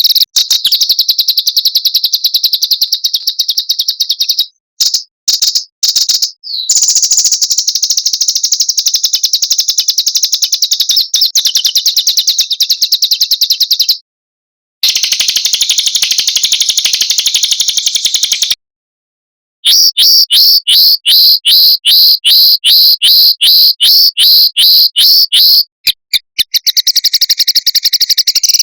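Edited recordings of small songbirds singing high, very rapid trills, broken by abrupt silent cuts between clips. From about two-thirds of the way in, the trills give way to a run of sharp, falling notes at about three a second, then the rapid trilling returns.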